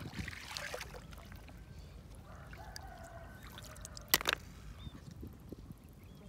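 Water splashing and dripping as snails are scooped by hand out of shallow water, with a sharp clack about four seconds in as snail shells knock together in a plastic basin.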